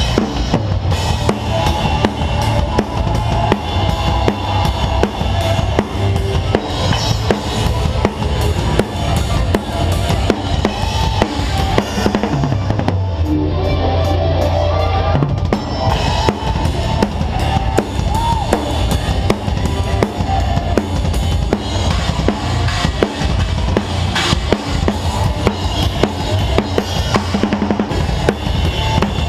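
Rock band playing live, heard from the drummer's seat: the drum kit is loudest, with bass drum, snare hits and cymbal wash over the band. About thirteen seconds in the drums drop out for a couple of seconds while a low note holds, then the kit comes back in.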